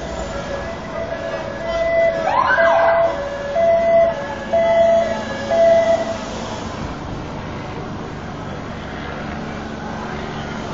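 Emergency vehicle siren sounding an alternating two-tone pattern, with a brief rising wail about two seconds in. It fades out about six seconds in, leaving steady street traffic noise.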